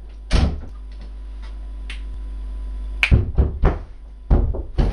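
A single thud about a third of a second in, then a quick run of knocks and thumps from about three seconds on, over a steady low hum.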